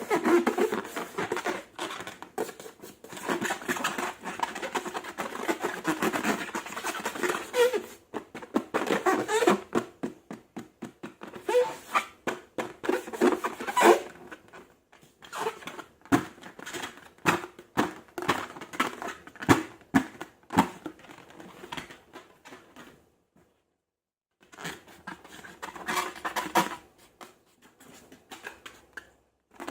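Slime being squished, pressed and stretched by hand, with runs of quick sticky clicks and pops and a short pause near the end.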